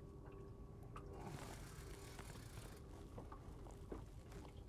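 Faint sounds of a boat fishing rod and reel being worked against a hooked fish: a few soft clicks over a low steady hum and hiss.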